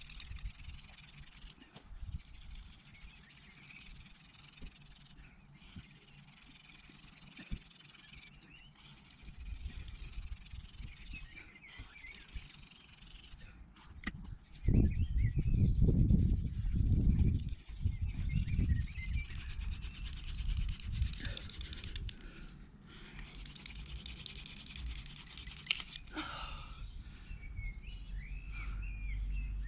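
Small birds chirping now and then over a quiet outdoor background, with a loud low rumble for about three seconds just past the middle.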